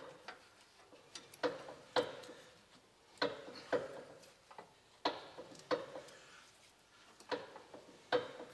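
Sharp clicks, often in pairs, every second or two, from the rear brake slack adjuster on an AEC Routemaster bus being wound in with a spanner click by click, while the wheel is turned by hand to find where the brake starts to bind.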